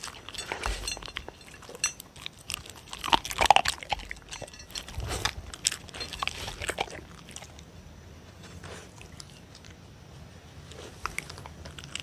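Dogs eating dry kibble and pieces of beef from a dish close to a microphone: irregular chewing and clicking, busy in the first half and fainter later on.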